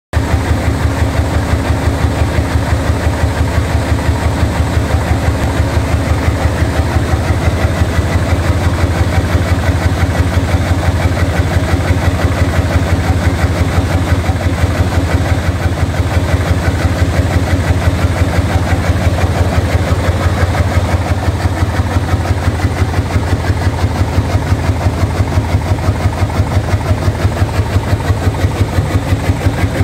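Pipe organ wind regulator on 20-inch wind pressure, feeding the pedal 32' Contra Tibia Clausa, 12 4/5' Tierce and 16' Trumpet, shaking under the tremolo. The wind throbs loudly in a rapid, even, low-pitched pulse that does not change.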